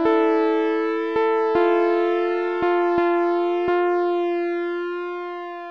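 Slow music: a few single notes struck over a held chord, then the last chord left ringing and slowly fading away.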